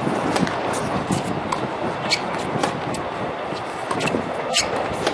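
Steady rumbling noise with irregular sharp clicks scattered through it.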